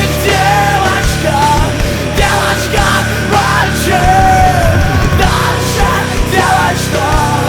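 Heavy rock band music: distorted guitars, bass and drums, with a sung and shouted lead vocal.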